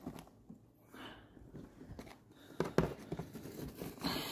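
Rustling and scraping of hand-sewing a suitcase seam: thread drawn through the fabric as a knot is tied off, with a few light knocks about two and a half seconds in.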